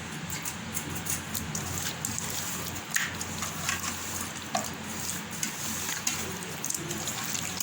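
Fish pieces being mixed by hand into a wet masala paste, a continuous squelching and rubbing with many small clicks and taps.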